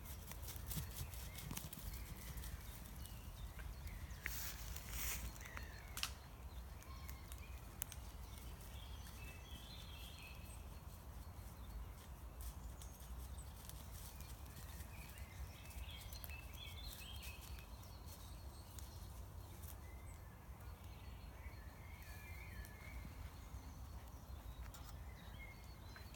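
Outdoor ambience: a steady low rumble of wind on the microphone, with faint bird chirps on and off and a few sharp clicks about four to six seconds in.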